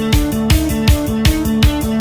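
Fast background music with a steady driving beat and a repeating bass line.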